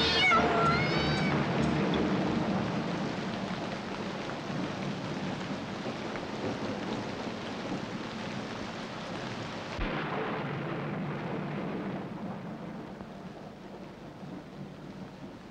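A cat meowing a couple of times as the music ends, then a steady hiss of rain with a single thunder crack about ten seconds in, the rain slowly fading.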